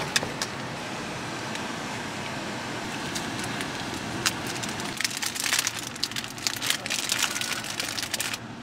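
Paper sandwich wrapper crinkling as it is unwrapped, a dense run of crackles starting about five seconds in, over a steady background hiss.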